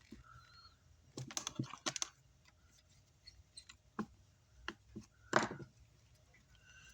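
Scattered clicks and light knocks of wires and tools being handled while a lead is hooked up to a car amplifier's terminal. There is a quick cluster of clicks a little over a second in, then a few single clicks later.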